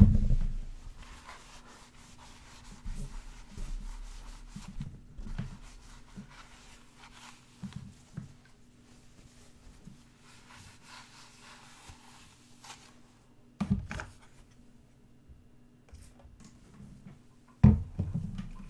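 Close-miked cloth rubbing and wiping over the face, soft and uneven, with a loud bump at the start and two more about 14 and 18 seconds in.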